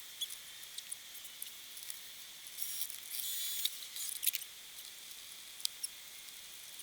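Light clicks and scratching from hand work on a plastic car door panel and its screws, with a longer stretch of scraping about a third of the way in and a few sharp clicks just after.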